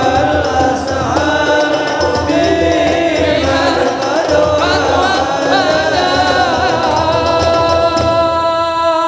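Men's voices singing an Islamic devotional song (sholawat) together over a low rhythmic accompaniment. Near the end the beat stops and the voices hold a long final note.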